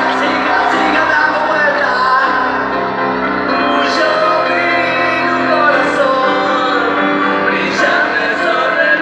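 Live song with piano and singing heard from the audience in a large theatre hall, the melody carried by voices over sustained musical tones.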